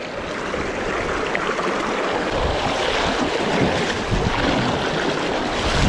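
Shallow, fast stream water rushing over rocks, heard close up with the microphone down at the water's surface: a steady rush with some low buffeting about halfway through.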